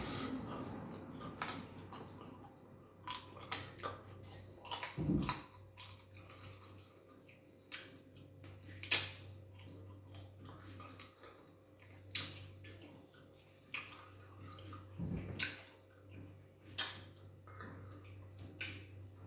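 Close-up mukbang eating sounds: irregular wet smacks, clicks and chewing while eating fufu with egusi soup and beef.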